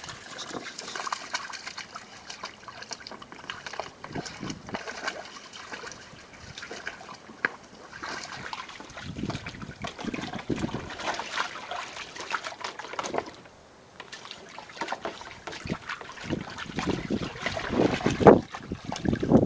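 Water in a shallow kiddie pool sloshing and splashing as a Staffordshire x Labrador puppy plays and paddles in it, in irregular splashes with a short lull about two-thirds of the way through.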